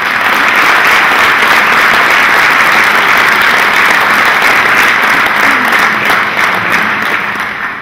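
Audience applauding, a steady clapping that starts all at once and dies away near the end.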